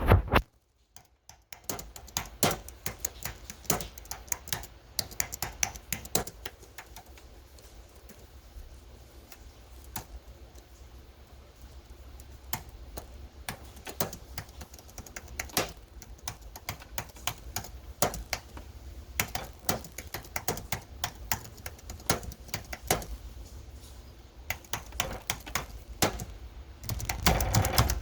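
Typing on a computer keyboard: irregular runs of key clicks, over a low steady hum. There is a short pause about a second in, and a louder, denser run of typing near the end.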